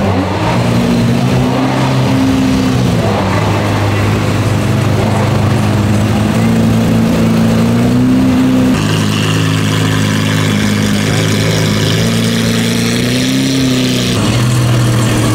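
Lamborghini Aventador's V12 running at low revs as the car creeps along, the note lifting briefly with light throttle about two seconds in and again near the end.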